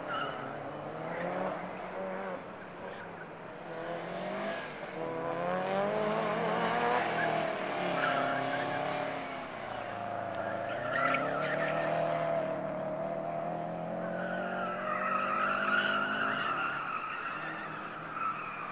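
A car being driven hard around an autocross cone course: the engine revs up and down again and again through the turns, with tires squealing in the corners, most clearly about three-quarters of the way in.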